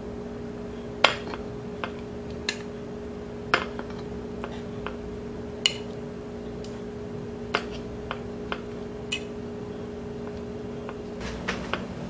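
Metal kitchen tongs clicking and tapping against a bento lunchbox and plate while pieces of chicken teriyaki are set in: a dozen or so sharp clicks about a second apart, with a few close together near the end. A steady low hum runs underneath.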